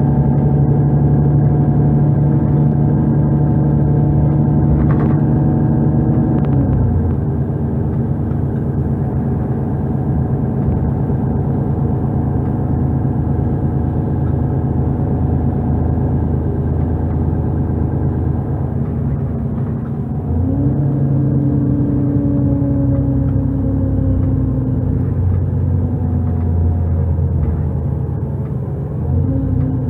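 Mercedes-Benz O530 Citaro city bus with a Voith automatic gearbox, its diesel engine heard from inside the bus while driving. The engine note runs steadily, drops away about six to seven seconds in, then comes back louder about twenty seconds in, with a brief surge near the end.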